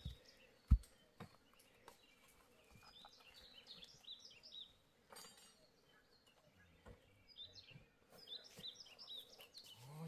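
One sharp knock about a second in, followed by small birds chirping in short repeated bursts in the background.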